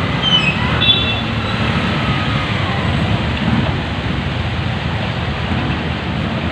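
Street traffic in the rain: the steady low rumble of motor-tricycle engines running close by over an even hiss of rain, with a few short high squeaks in the first second.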